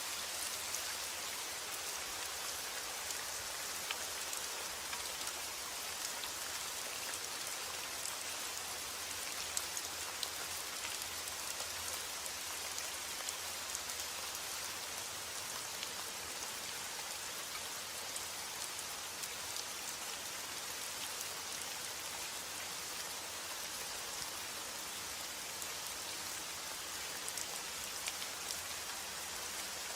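Steady rain falling, an even hiss of drops with scattered individual drop ticks on a surface.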